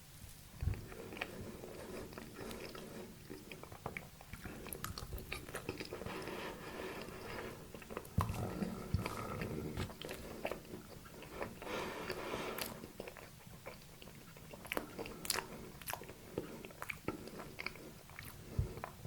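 Close-miked chewing and biting of a soft dessert cake, with many small clicking mouth sounds and a few louder bites, the loudest about eight seconds in.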